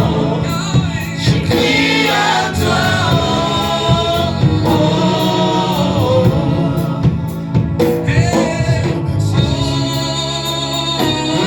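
Gospel worship song: a choir singing over instrumental backing with steady bass notes and a regular beat.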